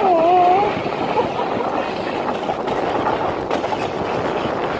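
Wicker basket toboggan's wooden runners scraping and rumbling steadily over wet asphalt during the downhill slide. A brief wavering tone rises over the scraping in the first second.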